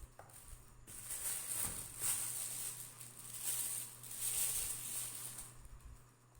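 Plastic packaging rustling and crinkling as it is handled, in several swells from about a second in until near the end.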